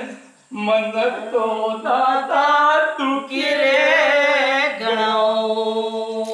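Folk song sung by the street-play performers: a singing voice with long held notes, pausing briefly about half a second in, with a wavering, vibrato-like passage in the middle.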